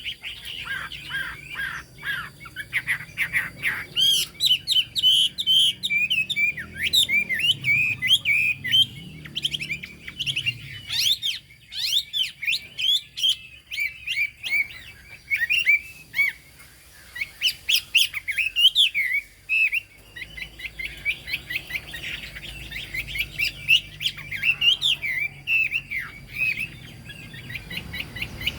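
Chinese hwamei singing a long, varied song of rapid chirps, whistled notes and trills, with brief pauses a little after ten seconds and again near twenty.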